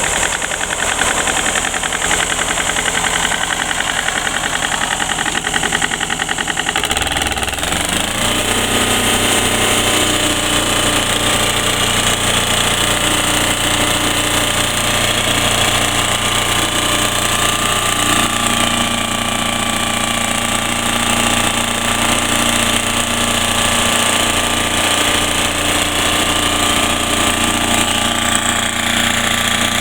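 Woodmizer band sawmill running steadily, its note changing about seven seconds in and again a little after halfway.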